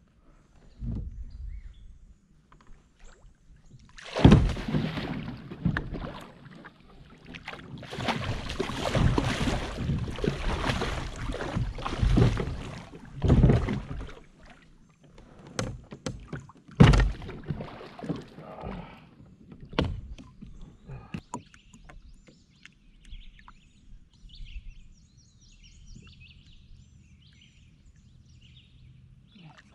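Water splashing against a kayak hull, in irregular bursts with several sharp knocks on the boat among them. Faint bird chirps come in near the end.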